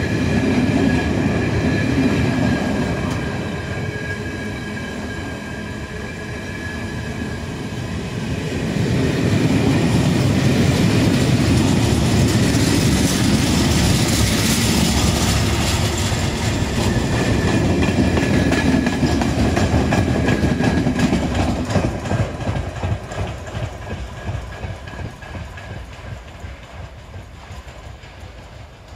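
Freight train of covered sliding-wall wagons rolling past, wheels clacking over the rail joints, with a thin, steady high squeal at times. The sound fades over the last several seconds as the end of the train draws away.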